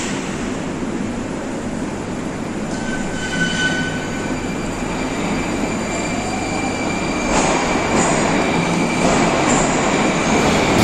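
81-760A metro train moving out along the platform, with steady wheel-and-rail noise and a rising electric whine from its traction drive as it speeds up. Thin whining tones join in over the second half.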